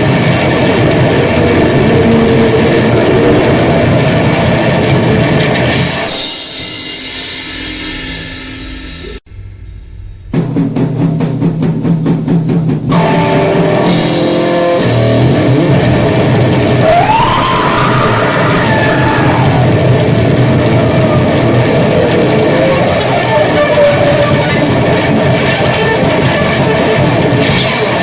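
Grind/noise music: dense, loud distorted guitar and drums. About six seconds in it thins out and fades to almost nothing, then the full noise crashes back in about ten seconds in, with some gliding squeals a few seconds later.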